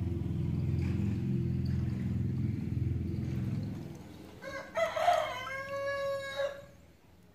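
A rooster crows once, starting about four and a half seconds in: one drawn-out crow of about two seconds, the loudest sound here. Before it a low engine rumble runs and fades out about four seconds in.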